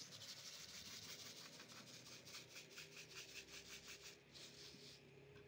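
Faint hissing of thin batter streams drizzled from a squeeze bottle into a hot metal snack mold, pulsing about five times a second as the stream is swept back and forth. It stops near the end.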